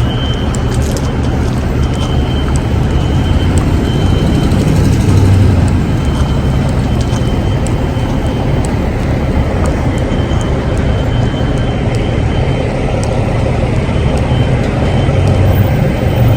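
A parking ramp's fire alarm sounding a high, steady tone in repeated stretches over a loud, steady low rumble of vehicle noise.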